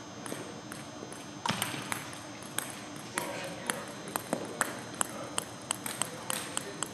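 Table tennis rally: the ball clicking sharply off the paddles and table, about two clicks a second, coming quicker near the end, with one louder hit about a second and a half in.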